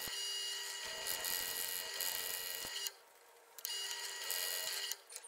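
Small bench mill, converted from a drill press, running under load with a steady motor whine while a twist drill bores into a thick round metal disc. The sound cuts out for under a second about three seconds in, then returns and stops near the end.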